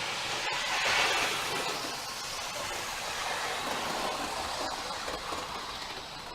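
Model railway coaches rolling along the track, a steady rumble of small wheels on rail that slowly fades as they move away.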